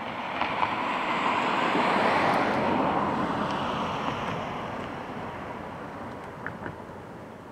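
A vehicle passing by: a rushing noise that swells to a peak about two seconds in and then slowly fades away, with a few faint clicks near the end.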